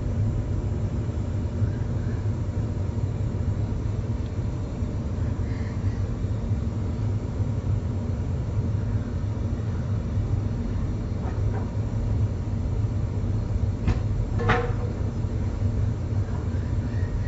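Electric Cat 320 Z-Line excavator working, heard from inside its cab: a steady low rumble from its electric drive and hydraulics. A short ringing knock comes about fourteen seconds in.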